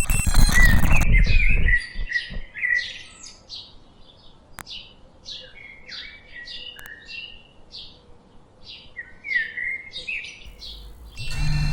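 A small bird chirping over and over, short downward-sweeping notes about two a second. Before that, a loud rushing noise cuts off suddenly near two seconds in, and a steady low hum with high tones starts near the end.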